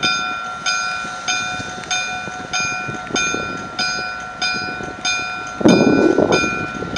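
Locomotive bell on vintage CP Rail ALCO diesel 4563, ringing steadily at about one and a half strokes a second as the locomotive moves. About five and a half seconds in, a loud burst of engine noise cuts in over the bell.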